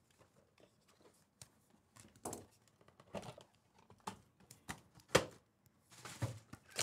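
Hands opening a cardboard trading-card hobby box and handling the card packaging inside: a run of short cardboard scrapes, rustles and clicks, the sharpest about five seconds in.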